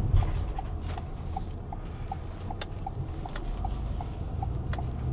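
Inside a Volvo truck's cab: the engine running with a low rumble under the steady ticking of the turn-signal indicator, about two to three clicks a second, as the truck turns in.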